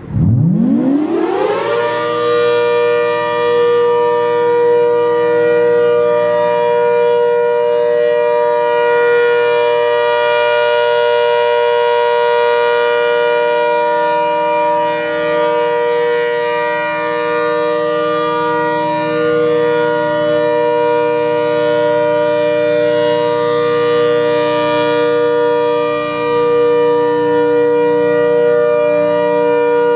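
ACA Hurricane outdoor warning siren winding up from a standstill, its pitch climbing fast for about two seconds and then holding a steady, loud chord of several tones. The level swells slightly now and then, with a brief dip near the end.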